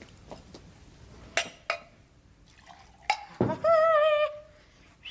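Two light clinks of glassware, then a thump a little past three seconds in, followed by a loud, high, wavering vocal cry lasting just under a second.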